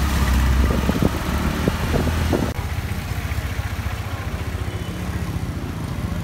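A motor vehicle's engine running close by. Its low hum cuts off sharply about two and a half seconds in, leaving a quieter, steady street background.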